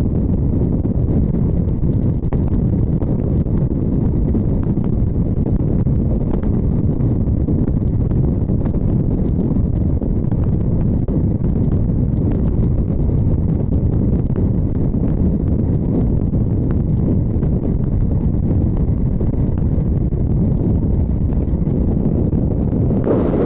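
Freefall wind rushing over a skydiver's camera microphone: a steady, loud, deep roar of air, with a brief burst near the end.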